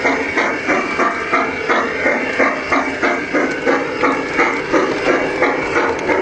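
G-scale garden train running, with a regular beat of about three pulses a second.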